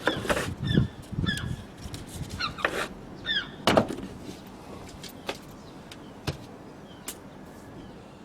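Sharp knocks and clicks of parts being handled, the loudest in the first second and again about four seconds in. A bird calls with short, repeated, falling chirps over them.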